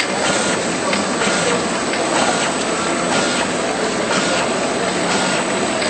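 Automatic bottle-labelling machine and its conveyor running: a steady mechanical hiss and hum with faint, irregular clicks.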